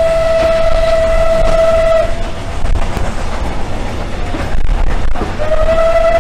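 Steam locomotive whistle blowing a long, steady note. It stops about two seconds in and sounds again near the end, over the low rumble of the moving train.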